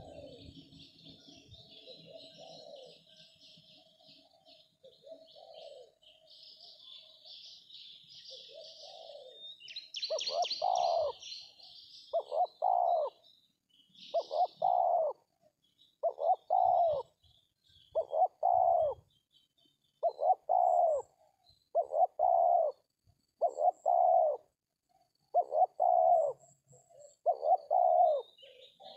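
Spotted dove (tekukur) cooing. Over the first ten seconds there are fainter coos with high chirping of small birds behind them. From about ten seconds in, a loud coo of two quick falling notes repeats about every second and a half, eleven times.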